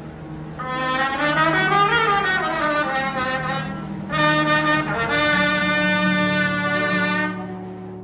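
Solo trumpet playing a slow melody of long held notes over soft, steady low chords from a brass band; the phrase dies away near the end.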